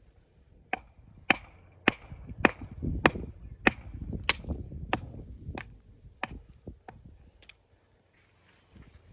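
A hammer striking stone about a dozen times at a steady pace, each blow sharp with a short ring, as a stone is broken down or trimmed to size.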